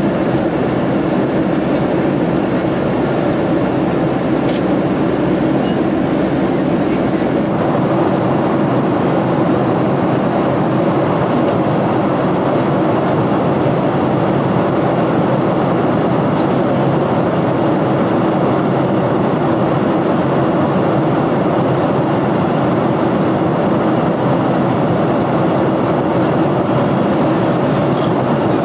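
Steady cabin noise of a Boeing 767-300 in cruise: engine and airflow noise heard from a window seat near the wing. The deepest part of the rumble drops away about seven seconds in.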